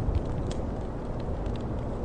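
Wood fire crackling, with scattered small pops over a steady low rushing noise.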